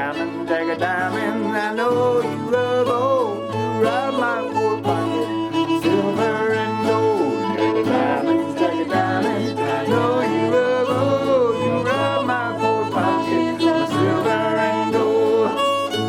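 Old-time string band playing an instrumental break, with a fiddle carrying the melody in sliding, bending lines over banjo and guitar accompaniment and a steady bass.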